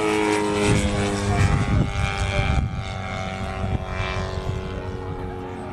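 Engine and propeller of a radio-controlled aerobatic model aeroplane in flight, a steady buzzing note whose pitch drifts slowly down. It grows fainter about halfway through.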